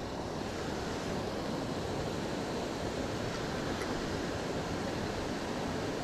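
Steady rushing of a river waterfall, an even hiss with no breaks.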